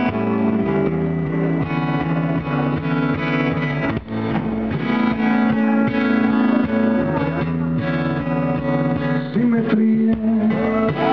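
Live rock band playing: strummed acoustic and electric guitars over bass and drums, recorded on a camera's own microphone.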